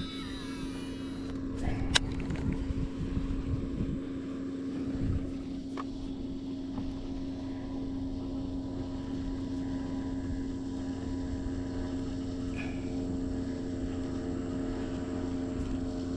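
A boat's motor running with a steady, even hum, with one sharp click about two seconds in.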